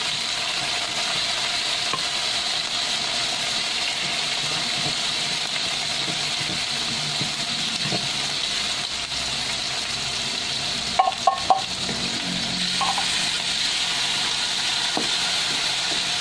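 Sliced hotdogs and corned beef sizzling steadily in hot oil in a wok. About eleven seconds in there are three quick metallic clinks.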